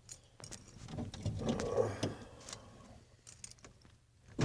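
A quiet pause between attempts to start a Ford F-150 that has sat for weeks, with a few faint clicks and a muffled rustle; right at the end the starter kicks in suddenly and the engine begins cranking again.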